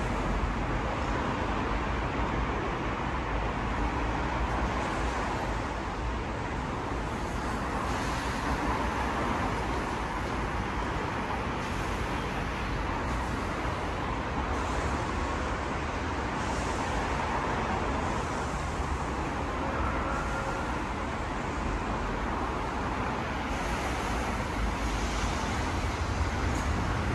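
Steady background noise on an elevated subway platform, mostly the low, even rumble of road traffic from the streets below, with no train moving.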